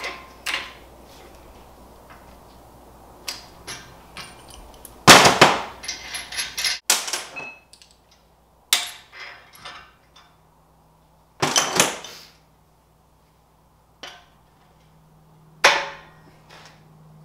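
Steel tools and parts clanking on a steel workbench: a wrench and socket working a bolt loose, then the bolt, nut and bracket set down. Several sharp, ringing clanks a few seconds apart, the loudest about five seconds in.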